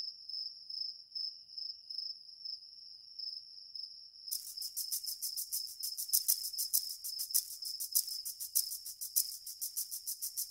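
Crickets chirping: a steady high trill, joined about four seconds in by a faster, evenly pulsing chirp.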